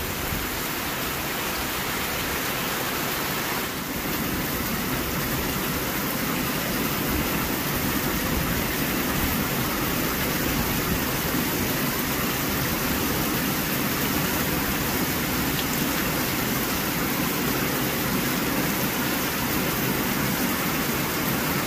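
Heavy rain falling steadily on a metal shed roof and on puddled ground: an even, unbroken rush.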